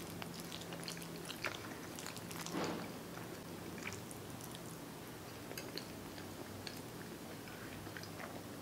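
Close-up chewing of a mouthful of macaroni and cheese, with soft wet mouth clicks scattered throughout and one louder mouth sound about two and a half seconds in.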